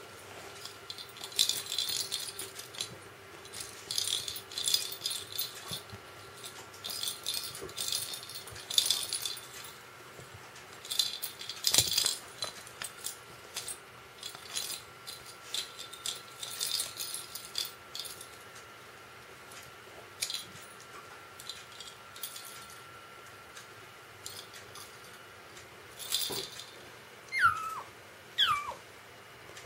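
A hollow plastic rattle-ball cat toy rattles in irregular bursts as it is batted and shaken about. Near the end the kitten gives two short mews that fall in pitch.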